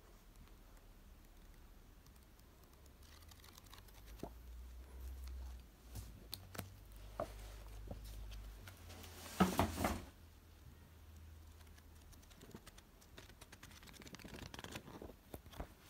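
A stack of A4 paper photo prints being handled and leafed through: soft paper rustles and small taps, with a louder rustle about nine and a half seconds in and more rustling near the end.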